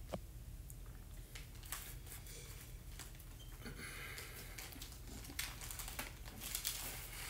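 Faint rustling, scraping and light clicks of small objects being handled while incense is lit, with a brief scratchy hiss about four seconds in.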